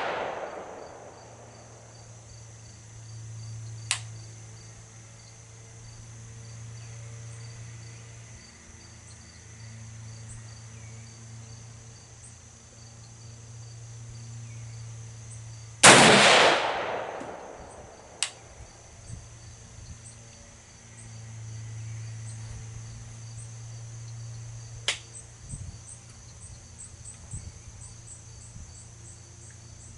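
A single rifle shot from a Daniel Defense Mk12 5.56 mm rifle about halfway through, with a long echoing tail. A few faint sharp clicks come before and after it, over steady insect and cricket chirping.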